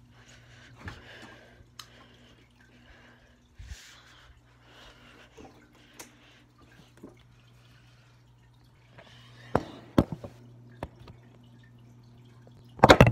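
Aquarium water dripping and trickling over a steady low hum, with scattered clicks and a couple of knocks. At the very end comes a loud clatter as the phone is dropped.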